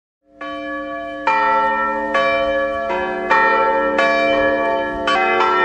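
Church bells ringing: several bells of different pitches struck one after another, about eight strikes, each note ringing on under the next. The sound fades in at the start.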